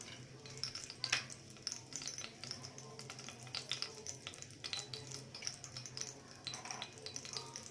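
Faint, irregular crackling of nigella seeds tempering in hot oil in a steel pot, over a low steady hum.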